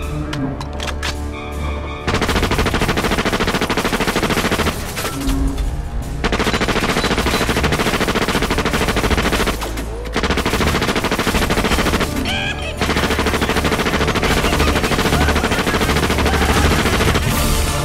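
Rapid automatic-gunfire sound effect standing in for the drill being 'fired', in four long bursts with short pauses between them, beginning about two seconds in.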